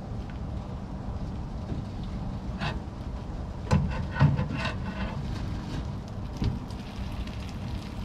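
Foam bedding a boat's fuel tank cracking and popping in a handful of sharp snaps, the two loudest about four seconds in, as a chain and scissor jack strain the stuck tank upward.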